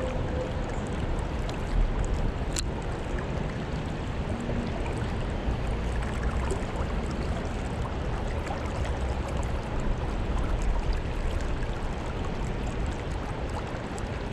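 Steady rush of river current flowing over a shallow, riffled stretch, with a single sharp click about two and a half seconds in.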